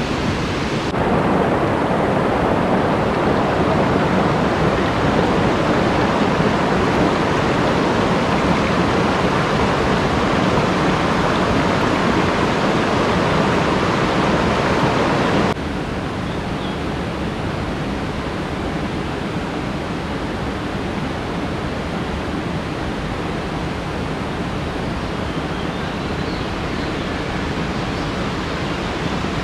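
A swift, rain-fed rocky river rushing steadily over stones. The rushing jumps louder about a second in and drops back a little about halfway through.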